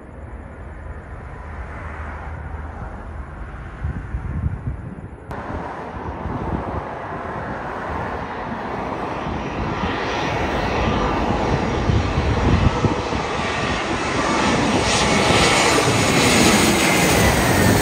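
Engines of a Spirit Airlines Airbus A320-200, a twin-engine jet airliner, on final approach: a steady jet rumble that swells as it passes low overhead, loudest near the end. For the first five seconds there is a quieter, more distant jet rumble before an abrupt cut.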